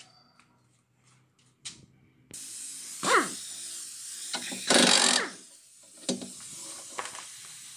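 Pneumatic impact wrench working the rear shock absorber's lower mounting bolt: a short burst about three seconds in whose pitch falls as it spins down, then a longer, louder burst about five seconds in. A steady hiss of air runs behind it.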